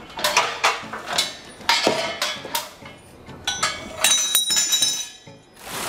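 Metal clinks and knocks from handling the steel parts of a power tiller, with a brief high ringing clang about three and a half seconds in.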